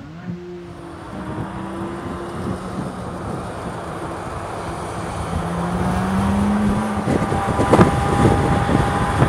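2023 Chevrolet Corvette Z06's naturally aspirated 5.5-litre DOHC V8 running under way on track, its note climbing slowly in pitch and growing louder, with a drop in pitch about seven seconds in.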